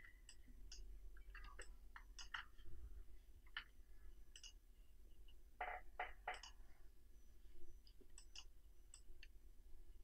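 Faint, irregular clicks of a computer mouse and keyboard, a few at a time, with a quick run of four louder clicks about halfway through.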